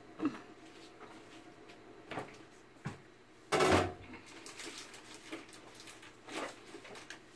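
Scattered kitchen knocks and clatter from things being handled, with one louder clattering burst about three and a half seconds in.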